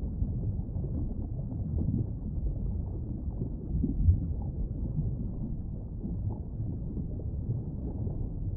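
Low, steady underwater rumble picked up by an ROV's camera on the seabed, with a brief thump about four seconds in.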